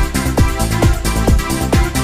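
Electronic dance music with a steady, driving beat, a little over two beats a second, each beat a deep hit with a falling swoop in pitch.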